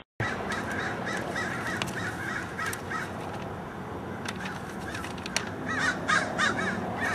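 Crows cawing in repeated bursts of short, harsh calls over steady outdoor background noise: one bout in the first few seconds and another near the end.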